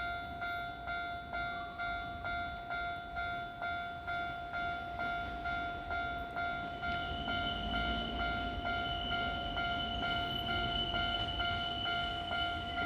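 Japanese railway level-crossing warning bell ringing its electronic clang at a steady rhythm, a little over two strikes a second. About seven seconds in, a second, higher tone joins it and a low rumble rises beneath.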